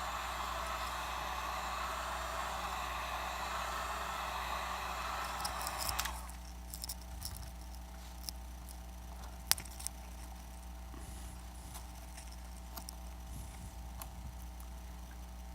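Heat gun blowing a steady rush of air, switched off about six seconds in. Scattered light clicks and taps follow, with one sharper click a few seconds later.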